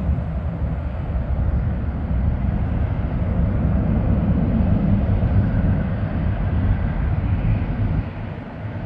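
Airbus A330-323 airliner's twin Pratt & Whitney PW4000 turbofans at takeoff climb power: a steady low rumble from the jet climbing away. It eases a little near the end.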